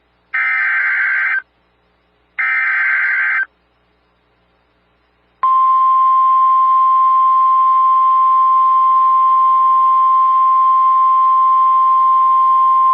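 NOAA Weather Radio emergency alert signal: two screeching bursts of SAME digital header data about a second apart, the last two of its three repeats. Then, about five and a half seconds in, the steady single-pitch Weather Radio warning alarm tone starts and holds, signalling that a severe thunderstorm warning is about to be read.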